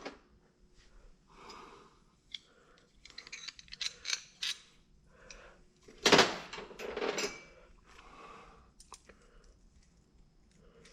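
Small metal hardware and tools being handled: scattered light clinks, clicks and rustling, with a louder scraping rustle about six seconds in.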